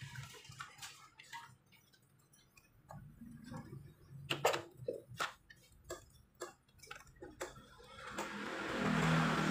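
Scattered sharp clicks and clinks of hand tools and metal engine parts being handled, the loudest about halfway through. Near the end a motor vehicle engine swells up and fades.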